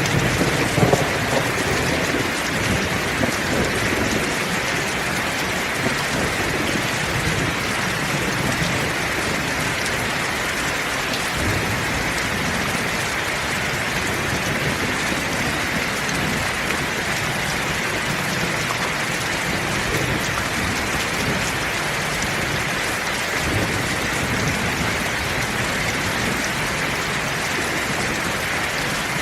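Heavy rain falling steadily, with low rumbles of thunder underneath, strongest about a second in.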